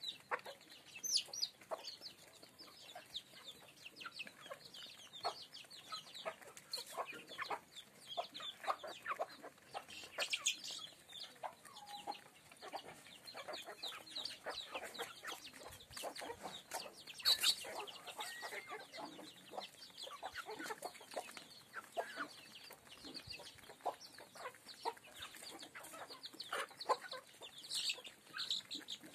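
A flock of Apatani chickens clucking, with short calls and many quick taps as they peck feed off a concrete yard.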